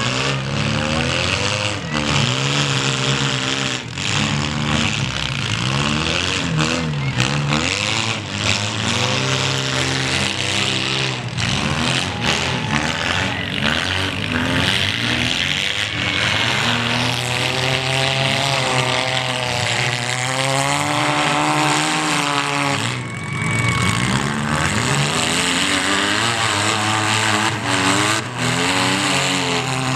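Several small car engines revving hard and falling back, overlapping, with occasional knocks of cars colliding.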